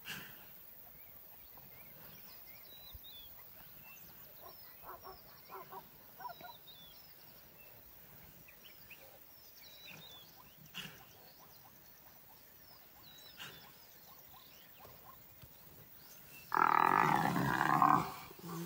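Mostly quiet, with faint chirps and a few short soft sounds. About two seconds before the end comes one loud, rough animal call lasting about a second and a half, from the two male lions and the bull eland they are holding down.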